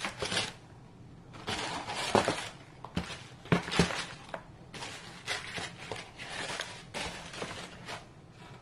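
Shoe packaging being handled: irregular rustling and crinkling, with a few sharp clicks and knocks.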